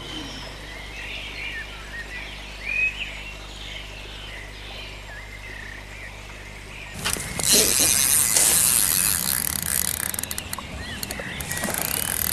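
Birds chirping, then about seven seconds in a sudden loud rush of splashing with rapid clicking as a carp is hooked and thrashes in the shallow margin.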